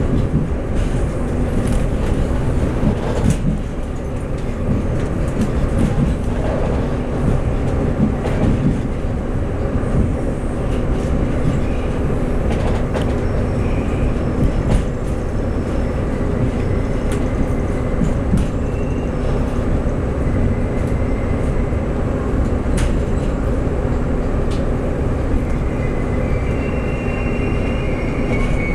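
Interior running noise of a Taiwan Railway DMU2900/3000 diesel multiple unit coach: a steady low rumble with scattered clicks from the wheels over rail joints. Near the end a thin high squeal comes in as the brakes slow the train into the station.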